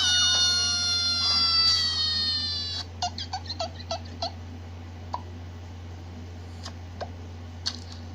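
Funny sound effects: a long pitched tone that slowly falls in pitch for about three seconds, followed by a quick run of short pitched blips and a few scattered clicks, over a steady low hum.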